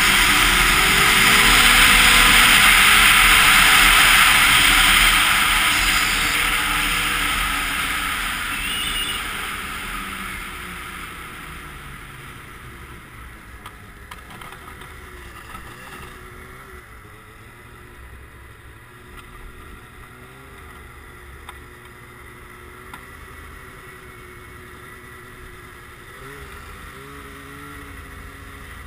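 Arctic Cat Crossfire 1000 snowmobile's two-stroke twin running at speed, with wind rushing over a helmet-mounted camera's microphone. About ten seconds in it eases off and drops to a much quieter, lower running that carries on to the end.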